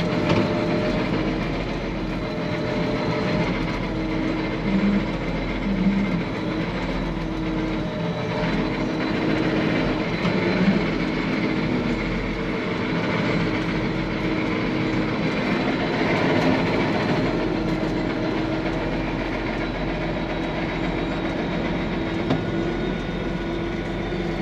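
Case 4690 tractor's diesel engine running steadily while the tractor is driven, with a dense, continuous rattle.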